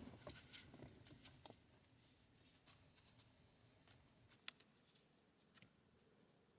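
Near silence with a few faint, scattered clicks of small plastic clips being handled as they are moved from one control cable to another.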